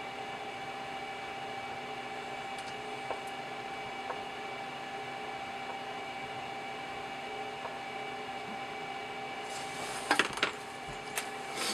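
Steady background hum of a fan or electronic equipment, holding several fixed tones, with a few faint ticks and a short burst of clicks and handling rattle about ten seconds in.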